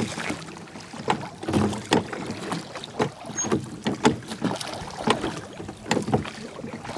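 Oars of a rowing boat being pulled: a steady rhythm of knocks and splashes, about one stroke a second, as the oars work in their rowlocks and the blades dip into the water.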